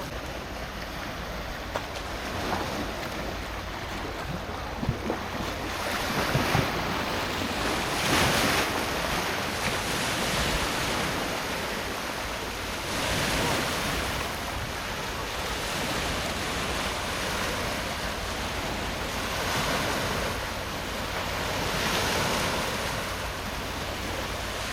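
Sea waves surging and washing in, in slow swells several seconds apart, with wind rumbling on the microphone.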